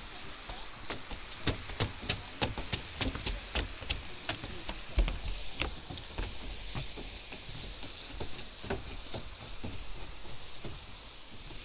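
Footsteps of several people climbing wooden stair treads: an irregular patter of knocks, with one heavier thump about five seconds in.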